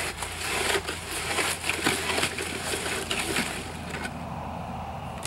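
Concrete mix and water being churned in a plastic bucket with a Mortrex hand mixing tool: irregular gritty scraping and crunching strokes, easing off about four seconds in.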